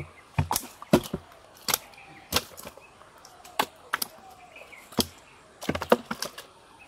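About a dozen irregular sharp slaps and knocks as freshly caught pond fish are handled and dropped into a plastic fish crate.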